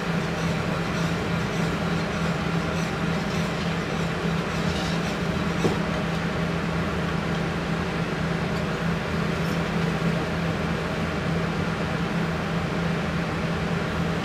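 Steady low mechanical hum with a constant low tone, unchanging throughout; one faint click about five and a half seconds in.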